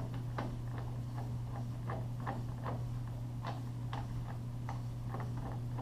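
Irregular light ticks, two or three a second, over a steady low hum.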